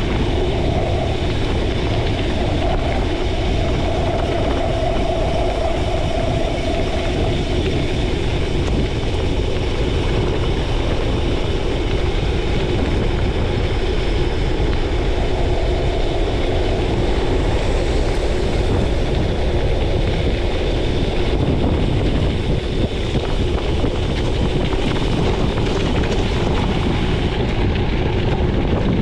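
Gravel bike's tyres rolling over a gravel road, a steady rolling noise heard from a chest-mounted action camera.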